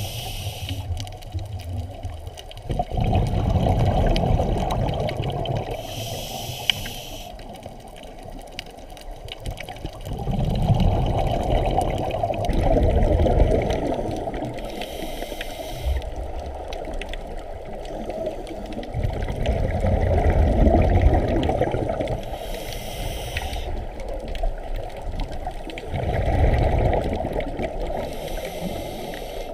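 A scuba diver breathing through a regulator underwater, about four slow breaths. Each brief hiss of inhaling is followed a few seconds later by a longer rumble of exhaled bubbles.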